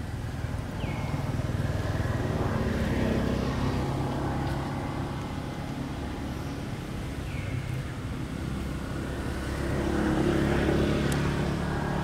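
Motor vehicle engines going past, a low rumble that swells twice, about three seconds in and again near the end. Two brief high chirps that drop in pitch come in between.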